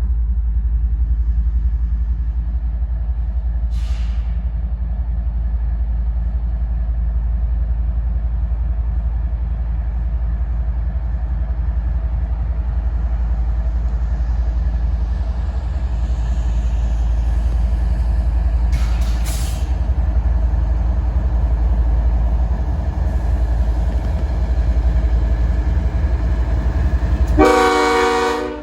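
Diesel locomotives of a freight train rumbling steadily as the train gets under way, with two short hisses along the way. Near the end a loud locomotive horn blast of about a second cuts in and stops abruptly.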